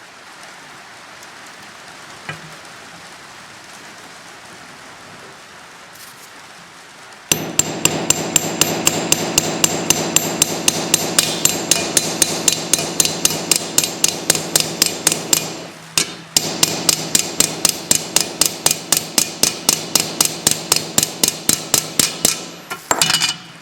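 Small hammer rapidly tapping a steel rivet head over, peening the rivet that holds a replacement sprocket nose on a chainsaw bar laid on a sledgehammer head as an anvil. The taps come about three or four a second with a metallic ring, starting about a third of the way in, with a short pause about two-thirds of the way through.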